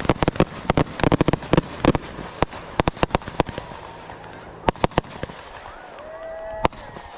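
Fireworks finale: a rapid barrage of sharp bangs over crackling that thins out after about two seconds into scattered reports, with a single last bang near the end.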